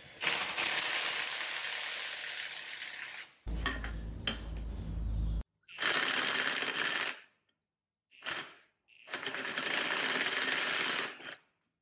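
Workshop noise from tearing down a Toyota 8-inch rear differential: mechanical tool running and metal clinking. It comes in several short bursts that cut in and out abruptly, and one bursts has a strong low hum under it.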